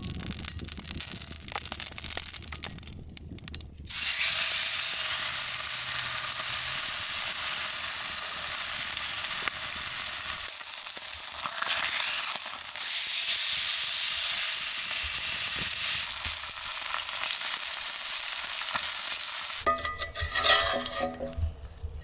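Food sizzling in a frying pan: a steady hiss that starts suddenly about four seconds in and stops near the end, followed by a few light clinks of dishes or a utensil.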